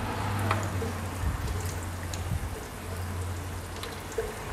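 Batter-coated salmon pieces deep-frying in hot oil: a steady sizzle with scattered crackles and pops. A low steady hum runs underneath.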